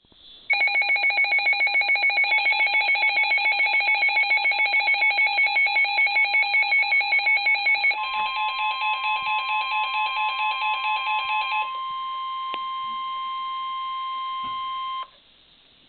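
A NOAA Weather Radio receiver's electronic alert sounds: rapid beeping at about six beeps a second. About halfway through, the steady 1050 Hz warning alarm tone starts. It is overlapped by weaker beeping for a few seconds, then holds alone and cuts off abruptly.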